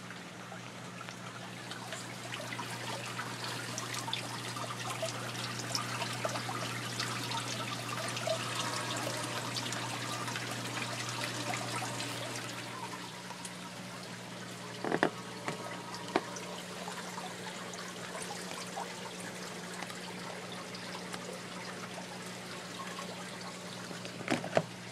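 Rainwater trickling and splashing into a collection container, louder for the first half, with a steady low hum underneath. A few sharp knocks about halfway through and again just before the end.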